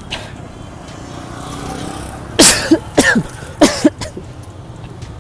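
Loud staged sneezes: three forceful sneezes about half a second apart, with street traffic running steadily behind.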